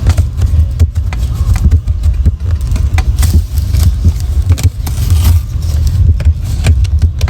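Packaging of a boxed smoke alarm being worked open by hand: many short clicks, crinkles and scrapes of cardboard and plastic, over a loud steady low rumble.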